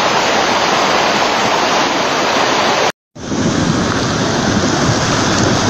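Fast-flowing muddy floodwater rushing down a street, a loud steady roar of water. It cuts out for a moment about three seconds in, then the rushing resumes.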